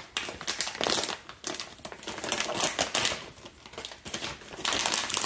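Clear plastic wrapping around a new reverse osmosis membrane filter being torn open and crinkled by hand: dense crackling that comes in spells with short lulls between them.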